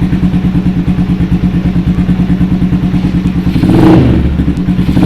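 Motorcycle engine idling with a steady, even pulse through an SC Project bent-tip exhaust fitted with an aftermarket dB-killer silencer, revved briefly twice: once about three and a half seconds in and again at the end.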